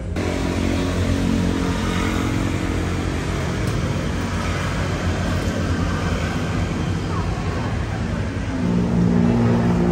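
Road traffic: motor vehicles, motorbikes among them, passing steadily. An engine passes closer and louder near the end.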